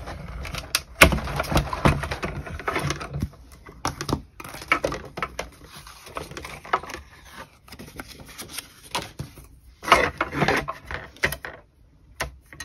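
Hand-cranked Big Shot die-cutting machine being cranked through, a low rumble with clicking for about the first three seconds. Then scattered clicks, taps and paper rustling as the cutting plates and die-cut cardstock are handled, with a louder burst of handling about ten seconds in.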